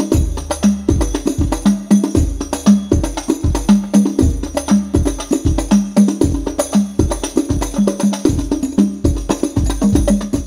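Hadroh percussion ensemble playing a steady, fast rhythm through a bass-heavy sound system. Frame drums and tambourine jingles strike densely over deep bass-drum hits with long low tails.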